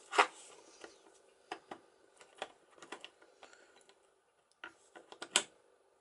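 Small metal clicks and taps from the internals of a sailboat cabin door lock as it is worked by hand and with a screwdriver turning its defective follower. The clicks are irregular: a sharp one at the start, a scatter of light ticks, and a few more near the end with one sharper click.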